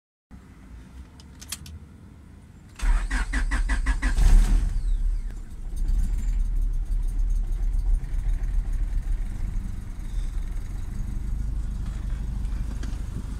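Honda B20 VTEC four-cylinder engine being started: the starter cranks in quick even pulses for about two seconds, the engine catches, and it then settles into a steady idle.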